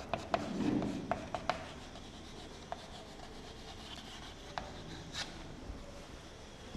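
Chalk writing on a blackboard: sharp clicks of the chalk striking the board, several in the first second and a half and a few more later, between faint scratching strokes.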